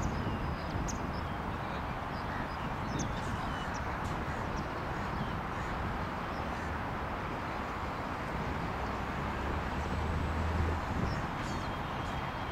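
Outdoor ambience: a steady hum of distant road traffic with a few short bird chirps, and a low rumble that swells for a few seconds near the end.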